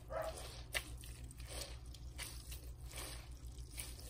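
Wet grated chayote squelching as it is squeezed and kneaded by hand in a stainless steel bowl, water dripping as the excess liquid is pressed out. One sharp tap stands out a little under a second in.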